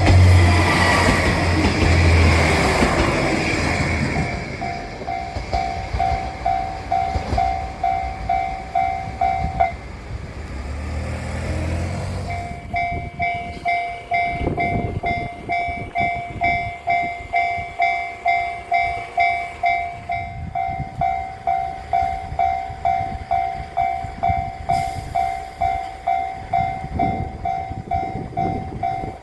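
A JR diesel train passes loudly over the first few seconds while a level-crossing bell rings in quick repeated dings. The bell stops about ten seconds in, a diesel engine hums briefly, and the bell starts again and keeps ringing at about two strokes a second.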